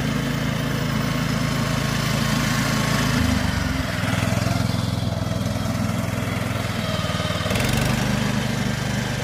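Baroness walk-behind greens reel mower's small petrol engine running steadily as it mows. The engine's tone shifts about three seconds in and again near the end.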